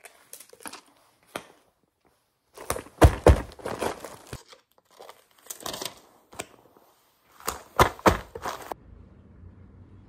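A padded mailer and the paper and plastic packing inside it being torn open and crinkled by hand. The noise comes in several loud bursts of tearing and rustling and stops a little before the end.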